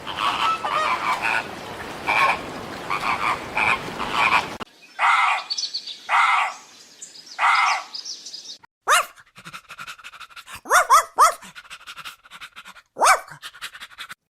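Animal calls in three short sections: first a dense flock chatter of many overlapping calls, then three loud separate calls about a second apart, then short sharp calls that sweep quickly upward in pitch.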